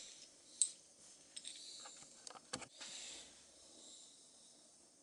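Small brass lighter parts handled in the fingers: a faint rubbing hiss with a few light clicks and taps, the sharpest about two and a half seconds in.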